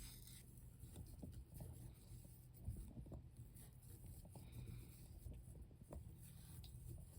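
Near silence with faint rubbing and small scattered ticks: hands wrapping black polar chenille around a fly hook, one tick a little louder about two and a half seconds in.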